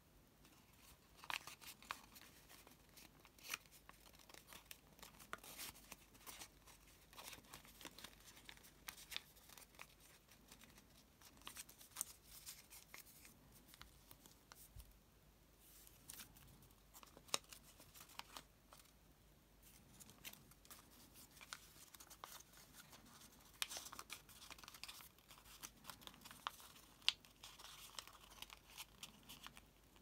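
Origami paper crinkling and rustling under the fingers as it is folded and creased, in faint, irregular small crackles.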